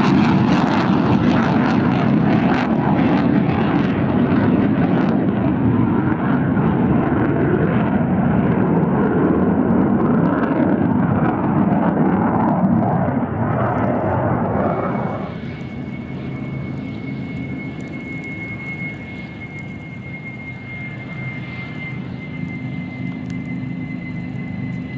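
F-16 fighter jet engine noise, loud and dense for about fifteen seconds as the jet climbs away. It then drops fairly suddenly to a quieter, steady jet whine with a thin high tone, from an F-16 on the runway.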